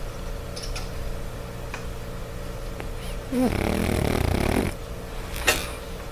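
French bulldog snoring in her sleep: one loud snore lasting over a second about halfway through, followed about a second later by a brief sharp sound.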